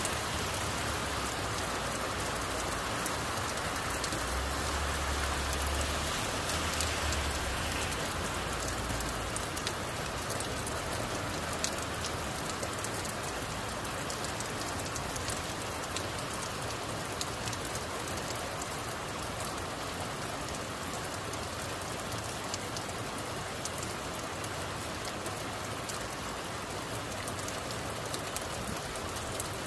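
Heavy rain falling steadily, an even hiss with scattered sharp taps of nearby drops. A low rumble comes in briefly about four seconds in and fades by about nine seconds.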